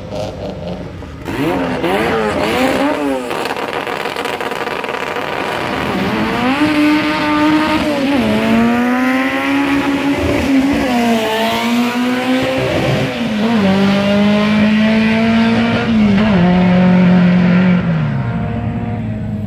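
Drag-racing Honda Civic launching from the start line about a second in and accelerating hard down the strip. The engine note climbs and drops back again and again as it shifts up through the gears.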